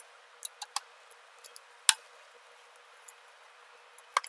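Scattered sharp metallic clicks and ticks of a ball-end hex key turning and knocking against the controller's terminal bolts, the loudest about two seconds in and again near the end.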